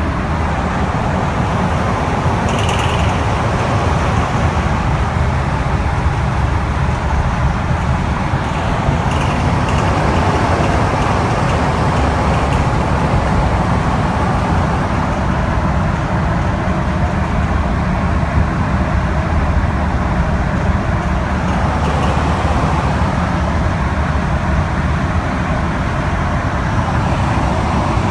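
Ford 6.7 L Power Stroke V8 turbodiesel running steadily with a knock, which the owner describes as the engine knocking and shaking.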